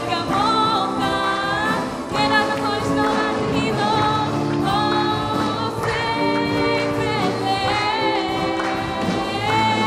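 Worship music in a synagogue service: several voices singing together in sustained, flowing lines over steady low instrumental notes.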